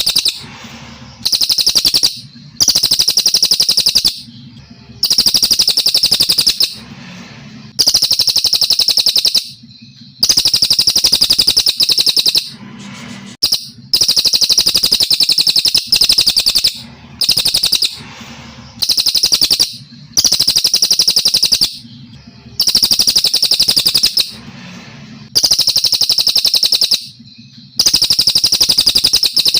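Brown cililin songbird singing: a long run of loud, high, rapidly pulsed trilling phrases, each a little over a second long, repeated about every two seconds with short pauses between.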